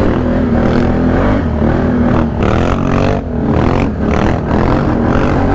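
ATV engine running, with the revs rising and falling twice, about two and a half seconds in and again around four seconds in.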